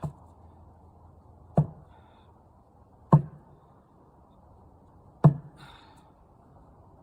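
Four heavy blows struck on wood, a second or two apart, each with a short dull ring.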